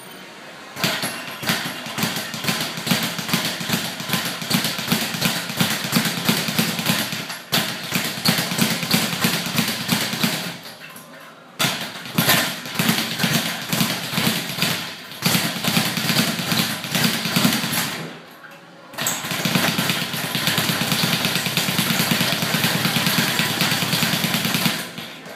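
Speed bag being punched in a fast, steady drumming rhythm as it rebounds off its overhead platform, in three long bouts broken by short pauses about 11 and 18 seconds in.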